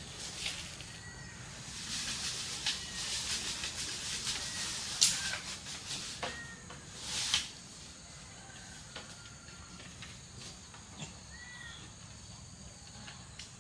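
Footsteps crunching and rustling through dry leaf litter for a few seconds, with two sharp knocks near the middle, while small birds chirp now and then.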